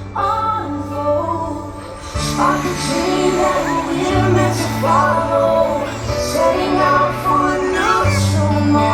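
Fireworks show soundtrack over the park's loudspeakers: orchestral music with a woman singing over sustained bass notes.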